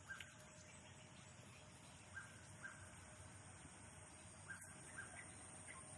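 Near silence: quiet outdoor ambience with a steady faint high hiss and four faint short bird chirps spread through the middle and later part.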